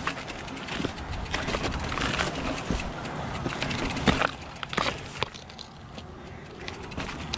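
Hardtail mountain bike rolling down a rocky trail: tyres crunching over stones, with the bike rattling and knocking over bumps and one sharp knock about four seconds in. Near the end it is quieter as the bike rolls onto smoother dirt.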